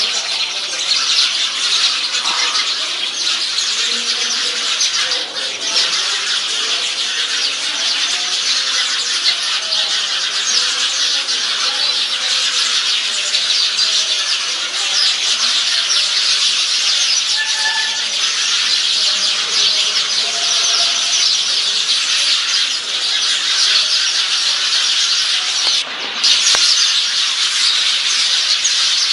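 Many birds calling at once in a tree, a loud, continuous dense chatter of high squeals and squawks, with now and then a single call standing out.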